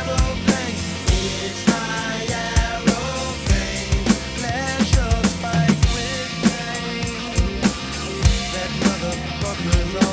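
Drum kit played along to a recorded rock song: kick drum and snare hits keeping a steady beat over the track's bass and singing.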